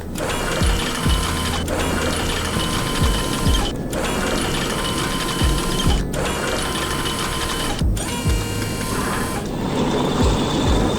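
Cartoon machine sound effects: a steady mechanical clicking and whirring, like a ratchet or gears, broken by short gaps about every two seconds. Regular low thumps run underneath, as from background music.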